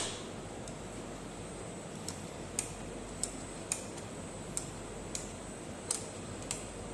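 Air circuit breaker's closing spring being charged by hand with its charging lever: a light click with each pump stroke, roughly one every half second to second.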